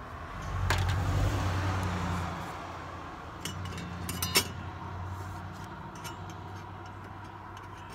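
A vehicle passes on the road: a low rumble swells about half a second in and fades away over the next few seconds. A few light metallic clicks and clinks come from steel digital calipers and a circular saw blade being handled.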